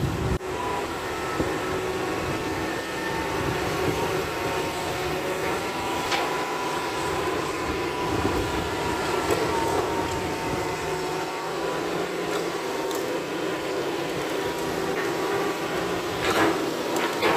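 Hitachi crawler excavator at work, its diesel engine running steadily with a steady whine as it digs and swings the bucket. Near the end come a few sharp knocks as the bucket drops soil and rock into a dump truck's bed.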